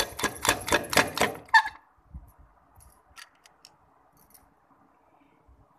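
A covered-button press being worked: a quick run of sharp metallic clicks, about six or seven a second, that stops after about a second and a half, followed by a few faint ticks.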